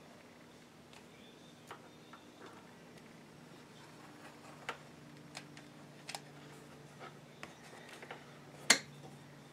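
Scattered soft clicks and taps from a hot glue gun as dots of glue are laid along the edge of a cardboard square, over a faint steady hum. Near the end comes one much louder, sharp knock.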